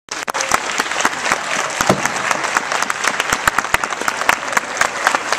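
Crowd applauding: many hands clapping at once, with some sharp single claps standing out.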